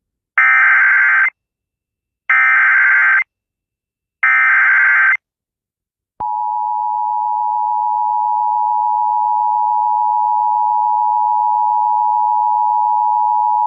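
Emergency Alert System activation for a flash flood warning: three short, buzzy SAME digital header bursts, about two seconds apart, then the steady two-tone EAS attention signal, which starts about six seconds in and holds.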